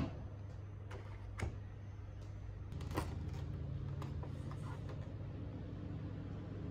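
Clear plastic cake container handled and opened on a kitchen counter: a few sharp plastic clicks and knocks as the lid comes off, over a steady low hum.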